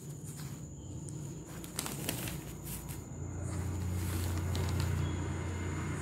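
A low rumble that grows louder from about halfway and eases off near the end, with a few light clicks and rustles about two seconds in.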